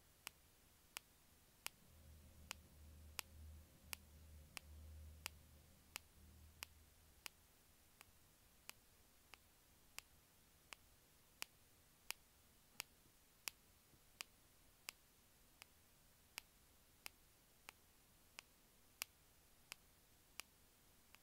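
Sharp, faint clicks repeating very evenly, about one every 0.7 seconds. A low rumble runs underneath from about two seconds in to about seven seconds in.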